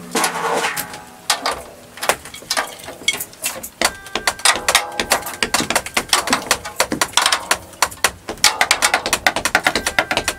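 A drum being tuned: quick, light drumstick taps on the drumhead at the rim, repeated several times a second and growing denser after the first few seconds, while the tension rods are adjusted.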